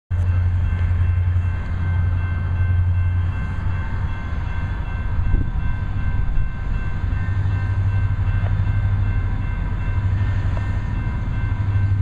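A lash-up of four EMD SD40-series diesel locomotives (SD40-2 and SD40-3) working a departing freight train. Their turbocharged 16-cylinder 645 engines make a steady low drone, with several faint steady high tones above it.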